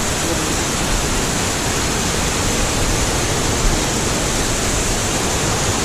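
Brook waterfall close by: a steady, loud rush of falling water.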